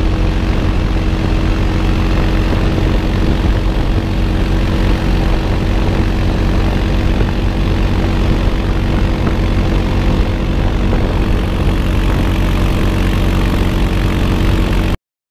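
ATV engine running at a steady speed while driving, a constant drone mixed with wind noise on the microphone; it cuts off suddenly near the end.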